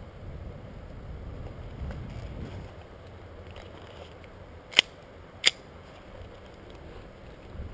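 Two sharp airsoft gun shots about two-thirds of a second apart, just past the middle, over low wind and movement rumble on the microphone.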